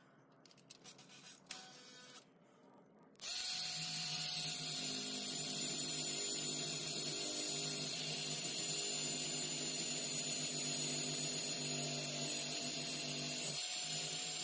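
A few light handling clicks, then about three seconds in a small handheld rotary tool switches on and runs with a steady high motor whine. Its speed dips briefly near the end as it is pressed against the work.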